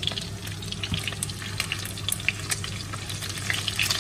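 Shallow oil sizzling and crackling in a frying pan around sticky-rice rolls and slices of Vietnamese pork sausage, with frequent small pops. A steady low hum runs underneath.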